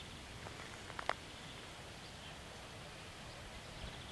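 Quiet outdoor background with faint high chirps, and a short, sharp double click about a second in.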